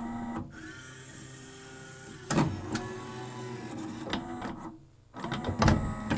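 Pioneer LaserDisc player's transport returning the laser pickup from side B to side A after eject is pressed. A steady motor whine with a few sharp mechanical clicks, a brief lull about five seconds in, then louder mechanism noise near the end.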